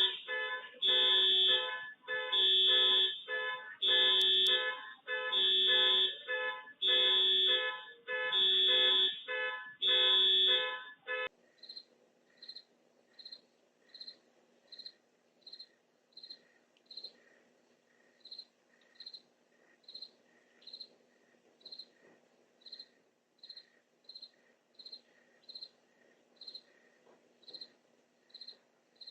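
An electronic alarm sounding in loud, evenly repeated beeps about once a second, which cuts off suddenly about eleven seconds in. After it, crickets chirp steadily, a short high chirp a little faster than once a second, over a faint low hum.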